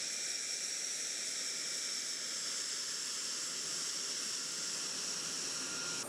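A jet engine at low power on a taxiing nEUROn unmanned combat aircraft, its Adour turbofan giving a steady high whistle over a hiss. The sound changes abruptly at the very end.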